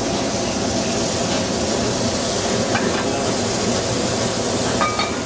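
Steady background noise of a restaurant kitchen: an even hiss over a low rumble, typical of the ventilation hood and a hot grill.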